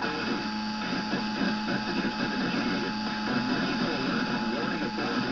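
Emergency Alert System national test audio coming from a television: a steady harsh buzzing noise with a thin steady tone running through it.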